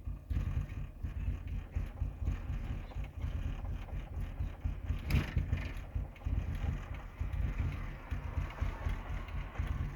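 2007 Chevy Cobalt SS engine running rough and barely idling, putt-putting unevenly, with one sharp click about five seconds in. The owner suspects a failed mass airflow sensor, whose reading isn't changing.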